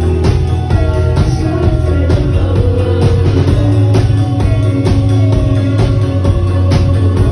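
Rock band playing live and loud: a drum kit keeps a steady beat about twice a second under bass guitar and electric guitar, with a heavy low end and a gliding melodic line on top.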